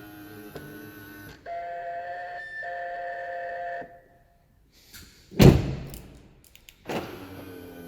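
Mercedes W212 E-Class door mirror motor whirring with a whine, in stretches: one starts at once, a steadier tone follows until nearly 4 s, and another comes near the end. A loud thunk comes about halfway through.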